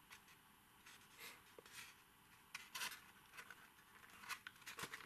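Near silence with faint, scattered taps and rubs as a toy RC airplane's fuselage is turned over in the hands.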